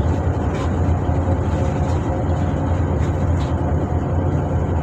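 Tugboat's marine diesel engine running steadily: an even, low-pitched drone.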